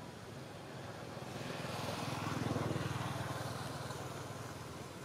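A motor vehicle passing by: its engine and road noise swell from about a second in, peak near the middle, and fade away again.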